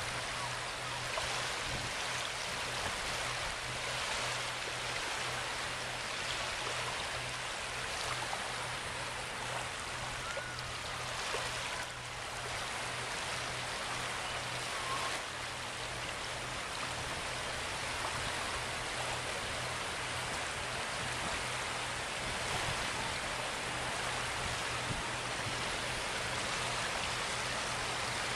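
Shallow sea water washing and lapping at the shore, a steady hiss of moving water, with a steady low hum underneath.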